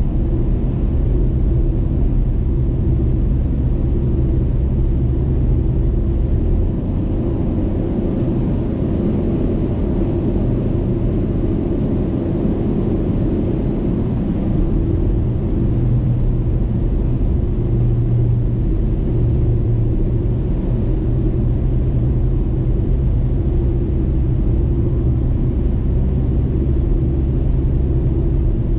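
Steady low rumble of a car driving on a highway, heard from inside the cabin: road, tyre and engine noise with no distinct events.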